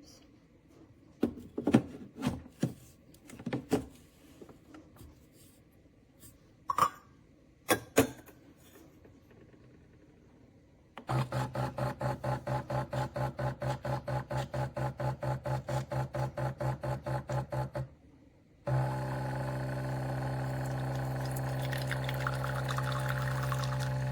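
A few knocks and clicks of the espresso machine being handled. Then its pump runs in a rapid pulse, about four beats a second, for some seven seconds, stops briefly, and hums steadily as the espresso brews.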